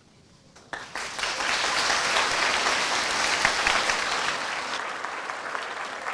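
An audience of many people clapping. The applause starts suddenly under a second in after a brief hush, stays at full strength, and eases slightly near the end.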